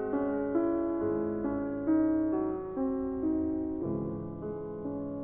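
Background piano music: a slow melody of single notes, a new note about twice a second over a held lower accompaniment.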